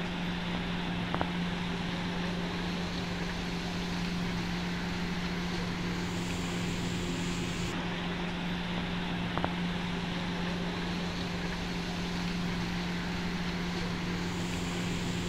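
Steady mechanical hum: a constant low drone over a background hiss, with two faint clicks, one about a second in and one past the middle.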